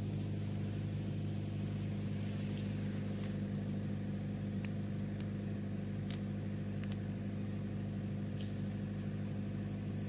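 A steady low engine hum, even throughout, with scattered sharp crackles from a small wood campfire.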